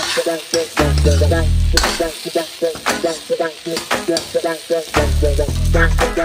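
Metal ladle stirring and scraping food frying in a steel kadai, with sizzling oil and scattered clinks of the ladle against the pan.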